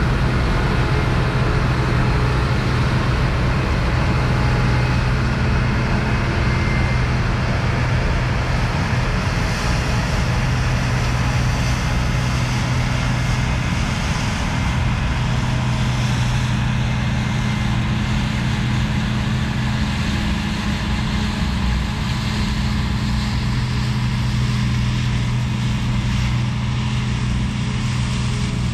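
Claas Lexion 430 combine harvester running under load while threshing rapeseed: a steady, loud engine and machinery drone with a deep hum. It gets a little quieter about halfway through as the machine moves off.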